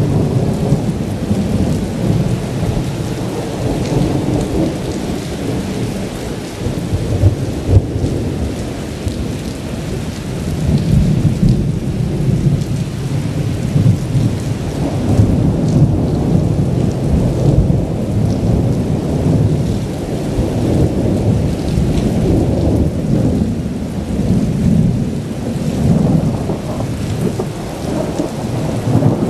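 Thunder rumbling almost without a break, swelling and fading in several long rolls, over steady rain.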